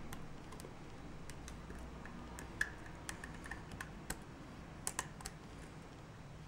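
Faint, irregular metal clicks and ticks of a lock pick working the pins of a five-pin lock cylinder picked from the rear under a tension tool, as the pins are set one by one.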